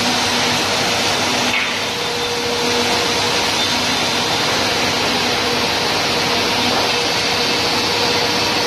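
Goodtek HS-635ARDB high-speed double-sided wood planer running: a loud, steady whirring noise from its spinning cutterheads, with a constant hum through it.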